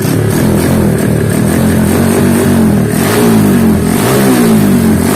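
Honda Mega Pro motorcycle's single-cylinder engine, built up to a 66 mm stroke, revved in repeated throttle blips, its pitch falling back after each one, about once a second in the second half.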